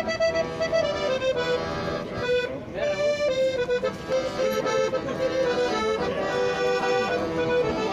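Piano accordion played live: a melody moving over held chords, the notes sustained by the bellows.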